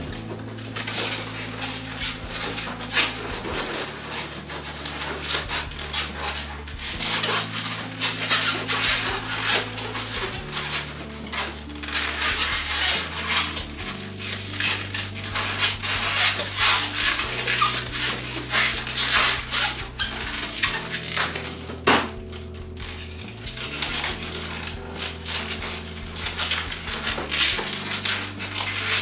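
Latex modelling balloons squeaking and rubbing against each other in quick, irregular strokes as a long balloon is twisted and wrapped around an inflated balloon figure, with one sharp snap about three quarters of the way through.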